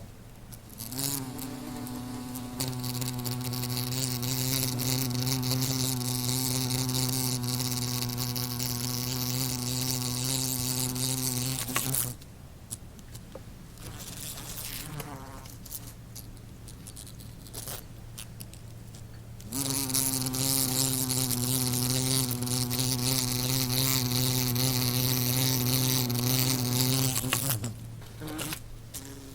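Wasp buzzing in flight, a steady low hum with many overtones. About twelve seconds in, the buzz drops away to a fainter level for roughly seven seconds, then returns at full strength and dips briefly again near the end.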